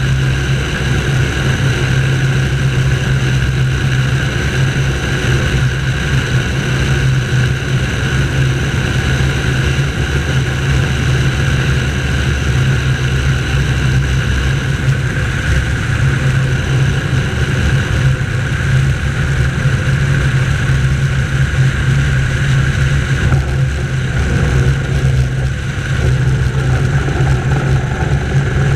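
Light propeller aircraft's engine and propeller drone with airflow noise, heard from a camera mounted outside under the wing, running steadily through final approach and landing. About three quarters of the way through, the hiss drops and the sound changes as the plane rolls out on the runway.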